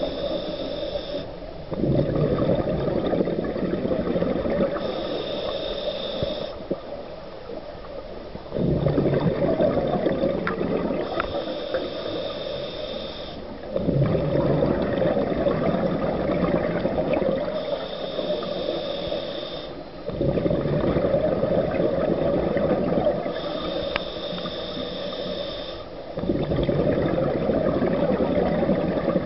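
Scuba diver breathing through a regulator underwater: a thin hissing inhale, then a long bubbling exhale. The cycle repeats about every six seconds, five breaths in all.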